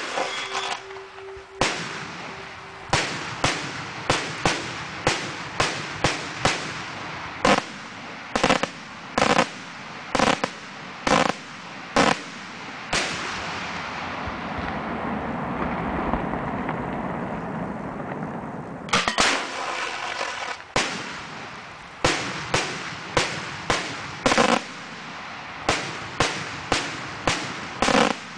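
Aerial firework shells fired from metal mortar tubes: a rapid series of loud, sharp bangs, often about a second apart. A few seconds of rushing hiss fall near the middle, then the bangs resume.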